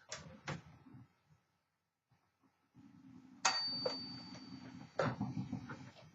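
1959 Smith Corona Silent Super manual typewriter being worked: two key strikes, a pause, then the margin bell rings once with a clear tone that hangs for about a second and a half, and a sharp knock and clatter of the carriage mechanism follows.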